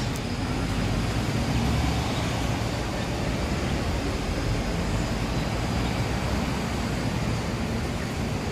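Steady background rumble of road traffic, with low wind buffeting on the microphone.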